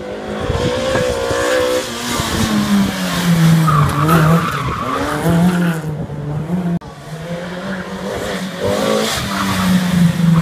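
A small hatchback rally car's engine, driven hard through a tight turn, revving up and falling back again and again with lift-offs and gear changes, and tyres squealing. About seven seconds in the sound cuts off abruptly, and another stretch of hard engine revving follows.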